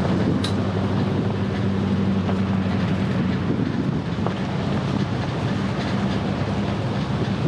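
Vehicle driving on a dirt forest road: steady engine hum under rough tyre and road rumble, with one sharp click about half a second in.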